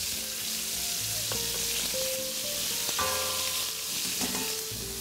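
Chopped tomatoes sizzling in hot oil with softened onion and garlic in a stainless steel pot as they are stirred in with a spoon: a steady frying hiss.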